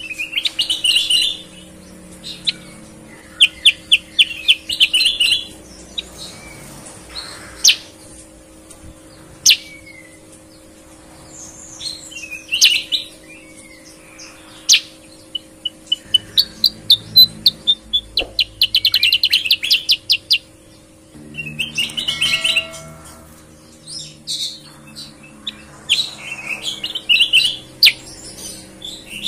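Caged kutilang bulbuls singing in a clear voice: bursts of rapid trilled notes and short whistled phrases, separated by brief pauses.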